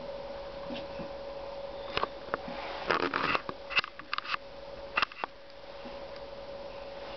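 A steady electrical hum, with a few soft taps and knocks scattered through it and a short cluster of them about three seconds in.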